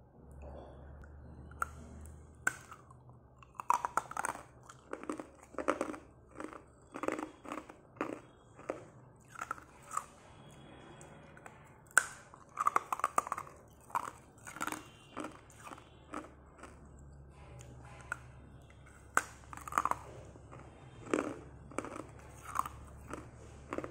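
Ice cube sticks bitten off with sharp cracks and crunched between the teeth in runs of chewing, with short pauses between bites.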